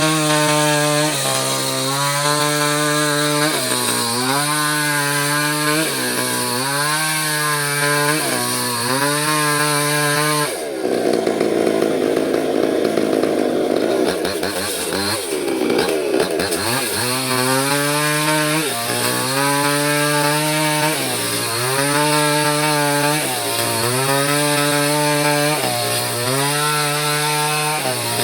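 Small chainsaw cutting into mahogany wood, its engine note dipping under load and recovering about every two seconds as the chain bites. For several seconds in the middle the steady note gives way to a rougher, noisier sound, then returns.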